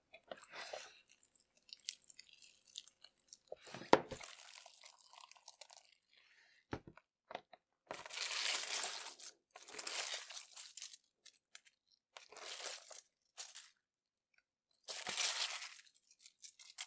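Slime being handled by hand: a few separate bursts of crackly, squishy noise, each about a second long, with a sharp click about four seconds in.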